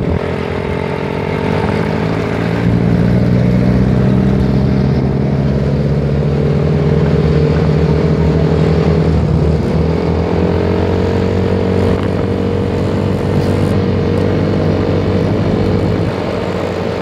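A motor vehicle engine running steadily close by, its pitch dipping briefly about halfway through and then picking up again, over road noise.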